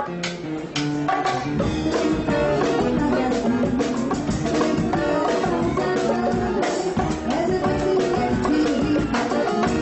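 Live band music with a drum kit keeping a beat under several held instrumental notes.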